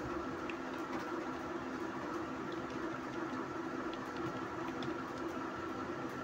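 Steady low background hum with a few faint, scattered clicks of a computer keyboard as a word is typed.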